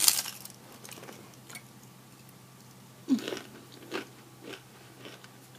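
A loud crunchy bite into a fried tortilla right at the start, then chewing with a few softer crunches and mouth sounds.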